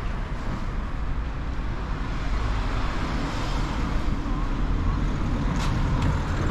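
Outdoor street ambience of passing road traffic: a steady low rumble that grows a little louder toward the end, with a couple of short clicks about five and a half seconds in.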